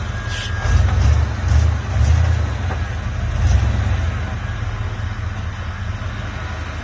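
Jeep engine running as it works over rocks off-road: a deep low rumble that swells and eases, with a few faint ticks above it.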